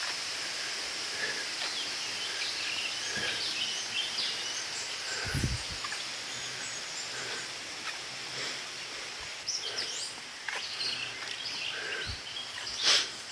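Outdoor woodland ambience: a steady high hiss with scattered short bird chirps. There is a low thump about five seconds in and a sharp click near the end.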